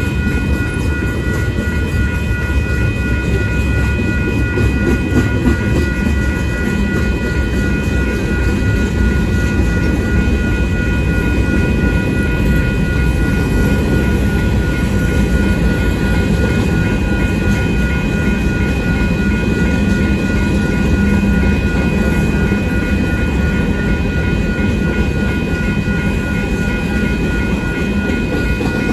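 Freight cars of a long manifest train rolling past with a steady, loud rumble of wheels on rail. A crossing bell rings steadily over it.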